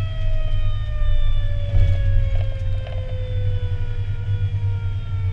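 Fire engine's siren heard from inside the cab, one long tone falling slowly in pitch, over the low rumble of the truck's engine and tyres.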